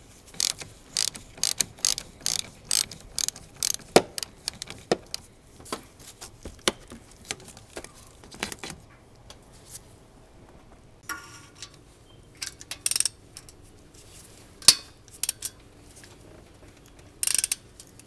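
Socket ratchet clicking while loosening a battery terminal nut: a quick run of clicks, about three a second, for the first half, then sparser, irregular clicks and short clusters of metal clicks.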